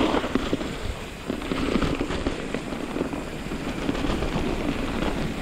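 Mountain bike rolling over a dirt trail strewn with pine needles and cones, a dense crackle of many small clicks and clatters from the tyres and the bike.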